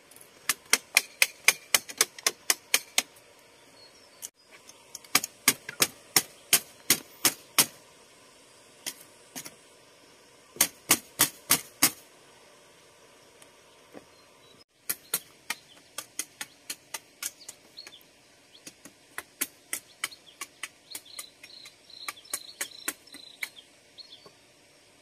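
Rapid series of sharp knocks, about four or five a second, in several bursts with short pauses between them, slower and lighter in the last part.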